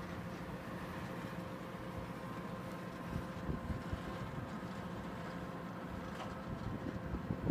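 Heavy farm machinery engine running steadily at working speed, a constant drone with a few faint knocks.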